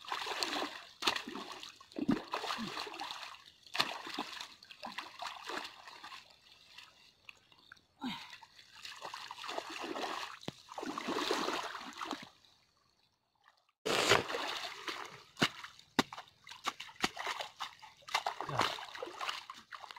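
Irregular splashing and sloshing of irrigation water in a flooded wheat field, stirred by a person working and stepping in the wet ground. There is a short break about two-thirds of the way through.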